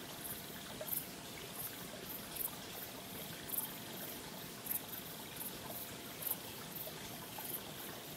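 Faint trickling water, a steady soft hiss sprinkled with small irregular high-pitched ticks several times a second.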